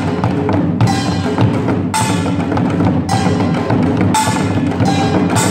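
Samulnori ensemble playing Korean percussion: the metal gongs ring out on strong accents about once a second over dense, fast drumming on janggu and buk.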